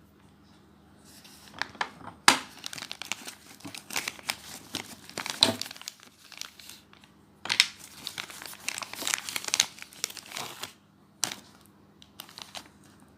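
Packaging crinkling and tearing as it is handled and opened, in two long stretches of dense crackling followed by a few separate crackles near the end.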